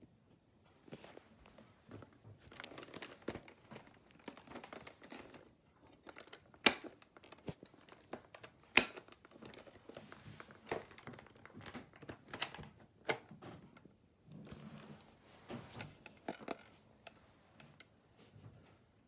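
Fabric rustling and crinkling as a quilted comforter is shifted about, broken by scattered sharp clicks and taps, the loudest two about a third and halfway through.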